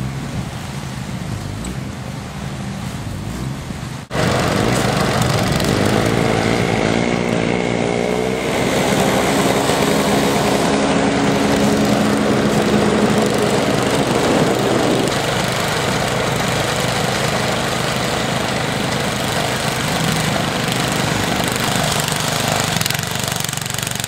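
An engine running steadily. Its pitch wavers for a few seconds, and the sound jumps louder abruptly about four seconds in.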